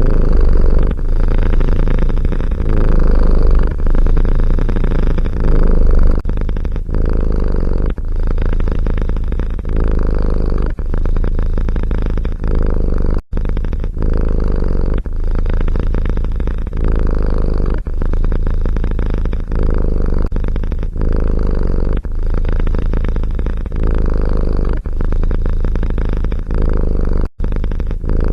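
Domestic cat purring loudly close to the microphone, a steady low rumble that dips briefly at each breath about every second or two. It cuts off abruptly twice, where clips join.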